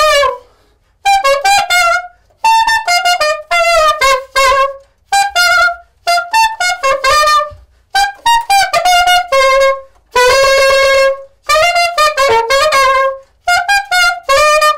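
Unaccompanied saxophone solo, played in short melodic phrases separated by brief pauses, with one long held note about ten seconds in.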